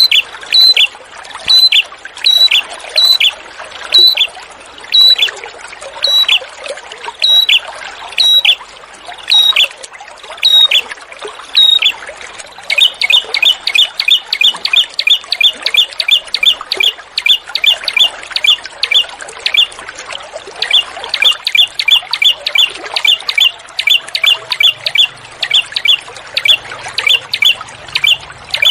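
A small songbird repeats a sharp, high call about once every second and a half. About twelve seconds in it switches to a faster run of about three calls a second. A steady trickle of running water goes on underneath.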